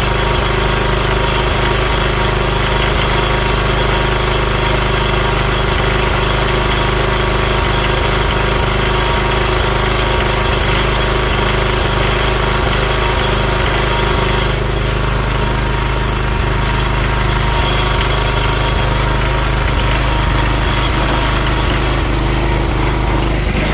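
Small garden-tractor engine of a Sears ST12 running steadily at a constant speed.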